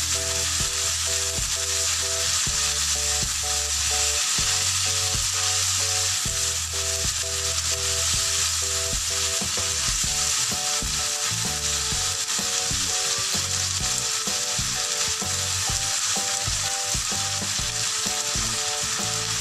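Ground pork and French beans sizzling steadily in a hot nonstick frying pan while being stirred and turned with a silicone spatula.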